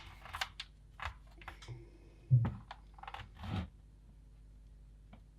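Scattered light clicks and taps from small parts being handled, with a soft knock about two seconds in and another about a second later.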